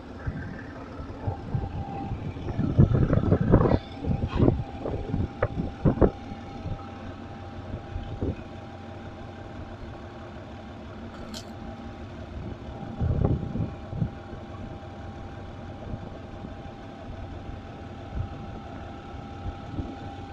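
GE UM12C diesel-electric locomotive engine idling steadily with a held hum. A run of loud knocks and clunks comes about two to six seconds in, and a shorter burst about thirteen seconds in.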